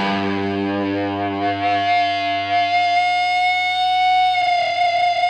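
Music: a distorted electric guitar chord struck once and left to ring, held at a steady level with one note sustaining strongly, the sound shifting slightly about four and a half seconds in.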